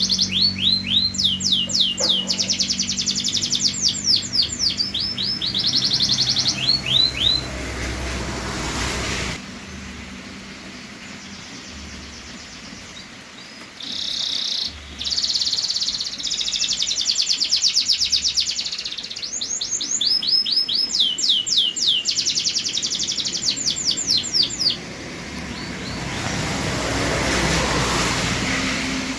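Canary singing in fast trills of repeated high notes, in two long song bouts with a pause of several seconds between them. A rush of noise swells up briefly in the pause and again near the end.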